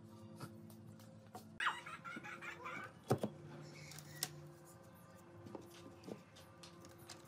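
Light wooden knocks and taps as thin wooden slats are picked up and laid across a wooden stool frame, with two sharper knocks about three and four seconds in. There is a short warbling, chirpy sound about a second and a half in.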